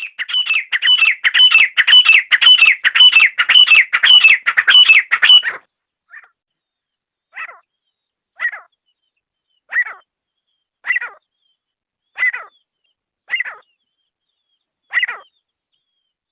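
Teetar (partridge) calling: a fast run of loud, sharp falling notes, about three a second, for the first five seconds or so, then single calls spaced about a second apart.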